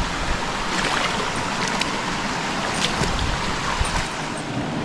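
Creek water rushing over rocks in a steady, even wash, with a few faint clicks.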